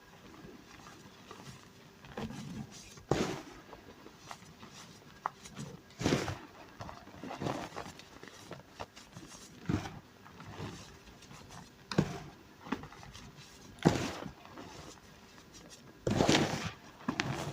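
Reformed gym chalk blocks being crushed, giving separate crisp crunches every second or two and a longer run of crunching near the end.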